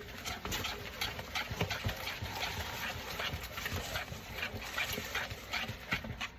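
Whisk beating a wet oatmeal batter in a bowl: a steady, irregular clatter of quick ticks and scrapes.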